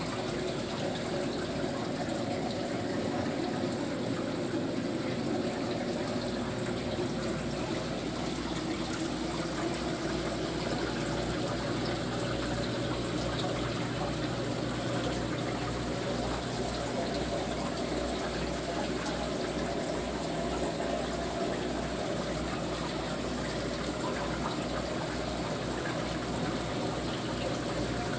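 Reef aquarium's water circulation: a steady rush and trickle of moving water with a low steady hum underneath.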